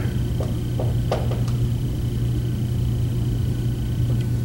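Steady low electrical hum in a small room, with a faint thin high whine and a few faint light taps in the first second and a half, as a marker writes on a whiteboard.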